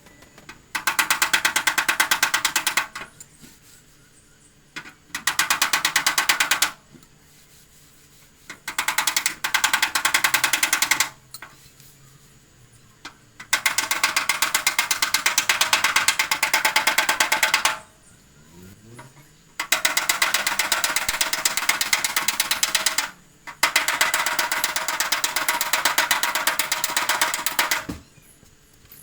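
Rapid metallic tapping on the steel hood of a VW Beetle as a dent is worked out, in about six bursts of two to four seconds separated by short pauses.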